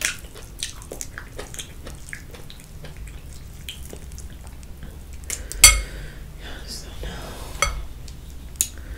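Boiled shrimp being cracked and peeled by hand: scattered small cracks and wet clicks of shell, with one loud sharp crack a little past halfway.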